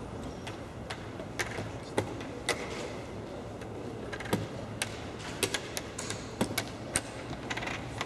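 Sharp, irregular clicks of draughts pieces being set down and game clocks being pressed during fast blitz play, about twenty in a few seconds, over a steady room murmur.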